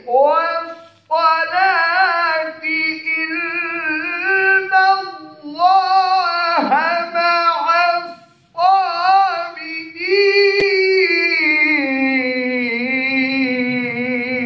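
A man's voice chanting Quran recitation in the melodic Hijaz style, in long ornamented phrases with short breaths between them. The last phrase is one long held note that sinks slowly in pitch.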